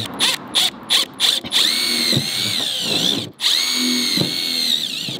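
Cordless drill whining as it bores a pilot hole through the car's taped-up trunk lid: a few quick trigger pulses, then two longer steady runs, with a brief stop about three seconds in. The pitch sags just before the stop as the bit loads up.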